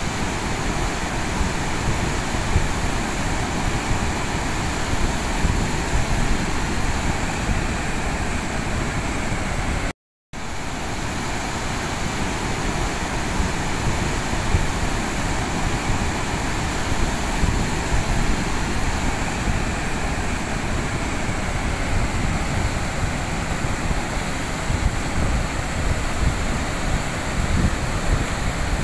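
Steady, loud rushing of floodwater, an even noise with no distinct events, broken by a short silent gap about ten seconds in.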